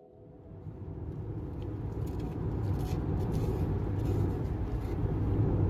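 Steady low rumble of a road vehicle running, fading up over the first couple of seconds and then holding steady.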